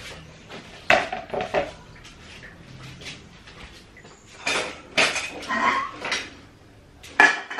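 Kitchen utensils and dishes clattering as they are handled: a string of irregular knocks and clinks. The loudest come about a second in and near the end.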